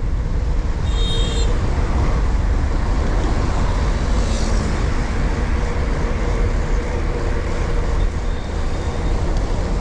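Wind rumbling over an action camera's microphone with tyre and traffic noise while riding a bicycle on a city road, steady throughout. A short high-pitched squeal about a second in.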